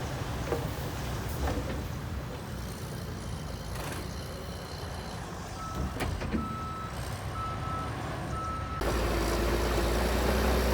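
Heavy earthmoving machinery engine running with a low rumble, and a reversing alarm beeping four times at an even pace a little past halfway through. Near the end the sound changes abruptly to a louder, steadier engine drone.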